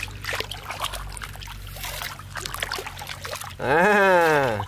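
Hands sloshing and swishing through shallow muddy water, with small splashes. Near the end a person's voice gives a loud drawn-out "aah" that rises and then falls in pitch.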